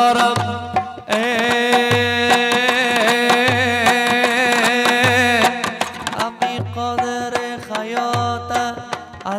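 Live Afghan mahali folk music on harmonium, dambura and hand drum: a deep drum stroke falls about every second and a quarter under a steady drone, with a long held chord through the middle.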